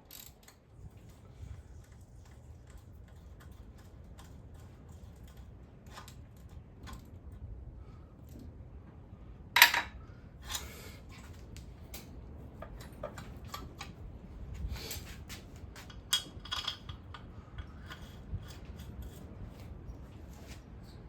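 Hand tools and engine parts clinking and knocking against each other during an engine teardown, with one loud metal clank about ten seconds in.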